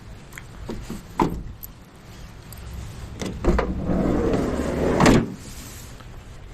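A van's sliding door rolling along its track and shutting with a sharp thump about five seconds in, after a few clicks and knocks.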